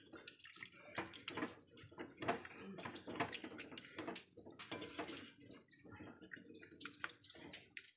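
A ladle stirring thin curry in a metal pot: wet sloshing with irregular scrapes and knocks of the ladle against the pot.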